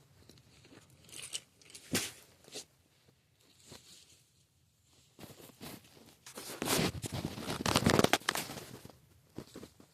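Crinkling and rustling of Pokémon cards and plastic being handled, with scattered short rustles and a louder, denser stretch of about two seconds past the middle.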